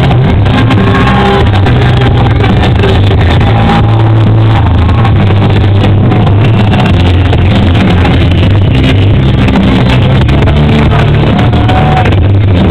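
Loud live band music with a voice singing over it, heavily overloaded and distorted on the recording.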